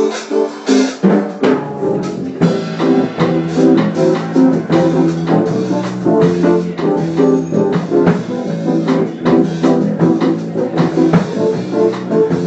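Instrumental music: guitar over a drum kit, with a steady bass line coming in about a second and a half in.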